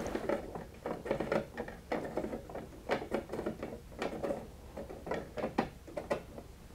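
Plastic gears of a 3D-printed PLA pendulum clock clicking and rattling irregularly as its moon-phase dial is turned by hand, in uneven clusters of small clicks.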